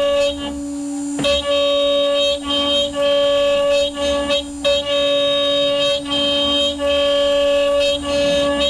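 CNC machine's stepper motors whining at one steady pitch as the machine runs its cutting program, dropping out briefly between moves about every half second to a second.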